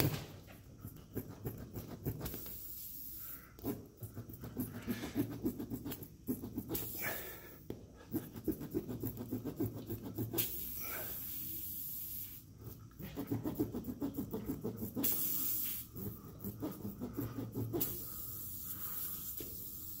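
Steel spiral reamer from a tire plug kit being worked in and out of a puncture in an ITP off-road tire's tread, rubber scraping against the rasp in quick, uneven strokes. A few short hissy bursts come in between the strokes. The reaming opens the hole to size for the plug.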